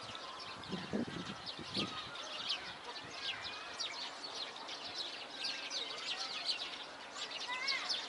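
Many small songbirds chirping together: a dense, continuous chorus of short, high calls and brief trills that overlap throughout.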